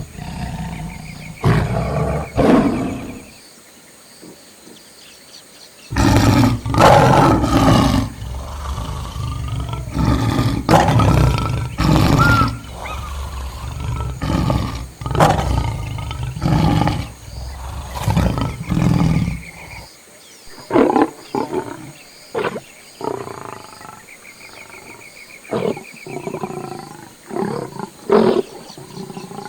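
Lion roaring: a long bout of loud, deep roars, followed by shorter, spaced-out grunts that thin out near the end.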